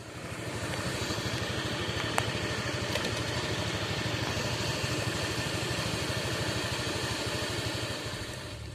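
Motorcycle engine idling with a steady, rapid, even pulse, fading slightly near the end.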